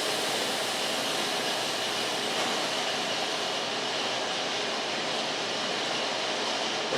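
Wood-Mizer LT50 band sawmill running, a steady mechanical noise, its highest hiss easing off about halfway through.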